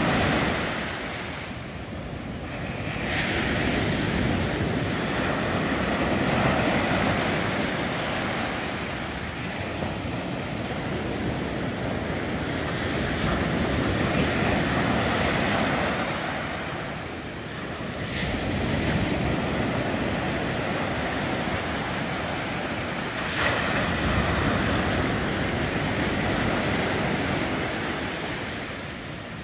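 Ocean waves breaking on a sandy beach and washing up the shore: a steady rush that swells and eases as each wave comes in, with fresh breaks about 3 seconds and 23 seconds in.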